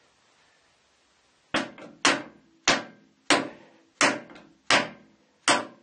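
Nylon-faced soft mallet tapping a cylindrical steel part home into its bore in a lathe apron: about seven sharp taps, roughly one and a half a second, starting about a second and a half in, each with a short metallic ring.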